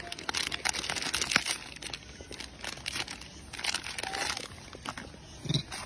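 A macaque crinkling and tearing at a plastic snack wrapper with its hands and teeth, in two spells of sharp crackling: one in the first second and a half, another around the fourth second. A short low thump comes near the end.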